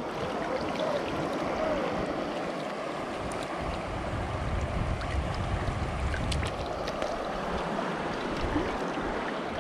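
Creek water flowing and rippling steadily around a wading angler, with a low rumble swelling in the middle stretch.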